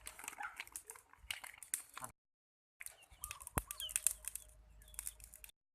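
Small birds chirping amid a scatter of sharp clicks and crackles. The sound breaks off completely twice.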